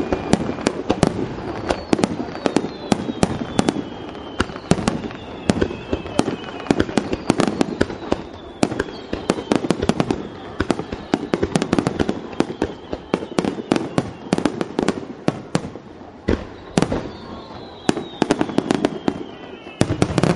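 Aerial firework shells bursting in a rapid barrage: many sharp bangs in quick succession, some close together in clusters. A few faint whistles fall slowly in pitch among them.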